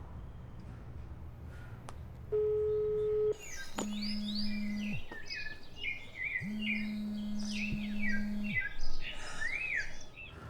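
Birds chirping and singing in quick, varied calls, starting about four seconds in. Before them comes a single steady beep about a second long, and two long low steady tones sound under the birdsong.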